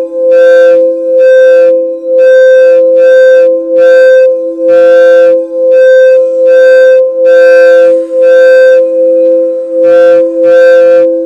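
Crystal quartz singing bowls sounding together: two steady sustained tones, with a brighter layer of overtones pulsing in and out about once every half to three-quarters of a second.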